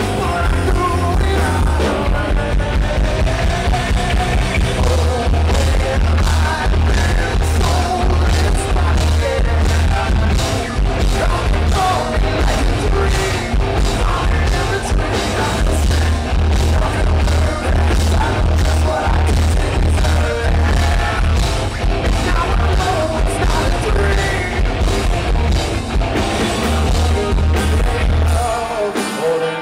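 Live rock band in full swing: a male lead singer singing over electric guitars, bass and drums, with heavy bass. Near the end the bass and drums drop out for about a second in a break in the song.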